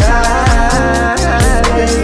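Hip-hop beat with no rapping: deep bass notes that slide down in pitch, regular hi-hat and drum hits, and a melody line that bends in pitch.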